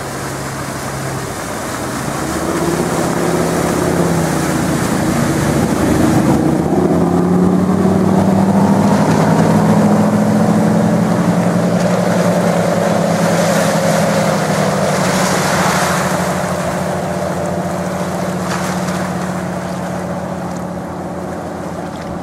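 Bertram 33 flybridge motor yacht running at speed as it passes, its engine drone dropping in pitch as it goes by. The drone is loudest for several seconds and then fades as the boat heads away, with the rushing wash of its bow wave and wake throughout.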